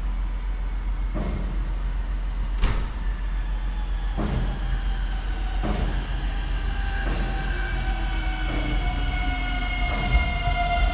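Slovenian Railways class 312/317 Siemens Desiro diesel multiple unit arriving at a platform and slowing, with a steady rumble and a knock about every second and a half. From about six seconds in, a whine of several tones falls steadily in pitch as the train loses speed.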